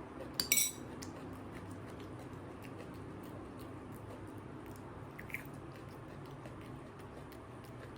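Chili peppers being chewed quietly, with a short bite about half a second in, then faint, even chewing clicks.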